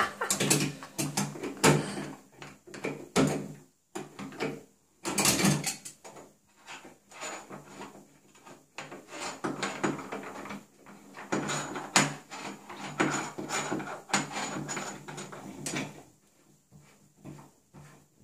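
Irregular metal clinks, knocks and scraping of a wrench working on antique faucet parts as the stems are loosened and taken out.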